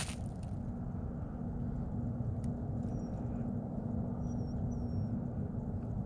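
Steady low outdoor rumble with a faint steady hum held for several seconds, and a few short, faint high peeps in the second half.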